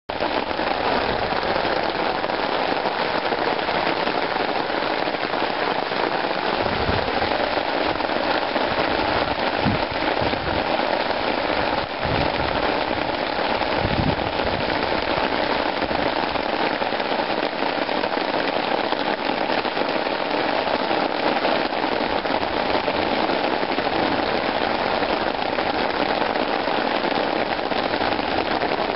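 Steady rain falling on a lawn, an even, dense hiss with crackling drops.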